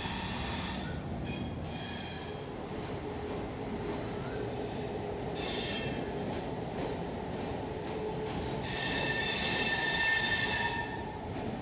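Passenger train's steel wheels squealing against the rails over a steady rolling rumble. High-pitched squeals come and go: one at the start, one about five and a half seconds in, and the loudest and longest from about nine to eleven seconds in.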